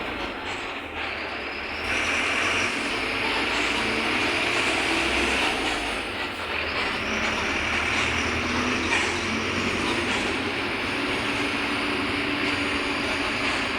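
Mercedes-Benz OF-1721 Bluetec 5 city bus, its four-cylinder diesel engine running under way with road rumble. It grows louder about two seconds in.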